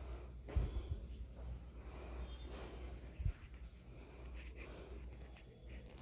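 Faint rustling and scratching with quiet breathing, close to a clip-on microphone, and two soft knocks: one about half a second in, one about three seconds in.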